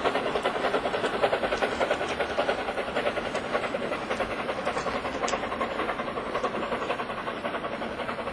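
A train running past with a fast, even rhythmic beat and hiss, slowly fading a little.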